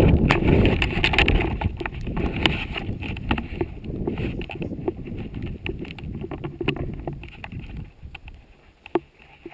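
Wind buffeting an action camera's microphone as a rumbling roar, with scattered clicks and rustles from handling the helmet the camera is mounted on. The wind rumble dies away about eight seconds in, leaving only the small clicks.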